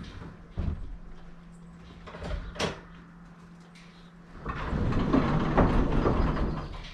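A few sharp knocks, then about two seconds of loud scraping and rattling, over a steady low hum.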